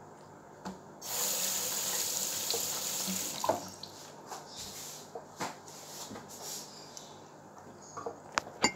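Kitchen faucet turned on about a second in, water running into a stainless steel sink, then turned down or off after a couple of seconds. A few light clicks and knocks follow, with more of them near the end.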